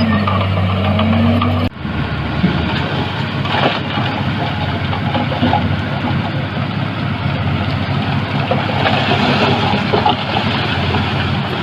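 Heavy-equipment diesel engine running, with a few short knocks. The sound breaks off abruptly a little under two seconds in and carries on with a rougher, less even engine note.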